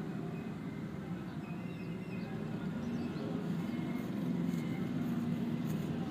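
Steady low background rumble, with faint crinkling of thin samosa pastry sheets being folded and pressed by hand in the second half.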